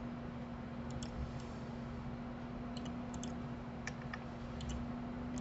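Faint, scattered clicks of a computer mouse and keyboard, about seven in all, over a steady low hum.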